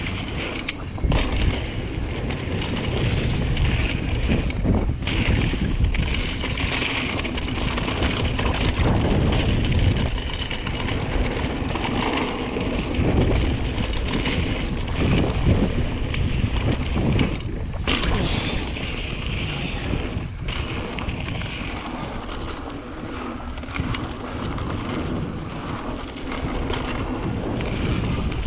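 Wind buffeting the GoPro Hero 7 Black's microphone as a mountain bike rides fast down a dry dirt trail, mixed with the low rumble of the tyres on the dirt. It is a steady rushing noise that drops away briefly a few times.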